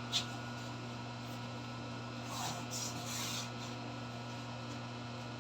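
A steady low hum with a single soft click just after the start. About two seconds in comes a faint, brief scratching rustle, light handling noise from marking or handling a peel-and-stick tile.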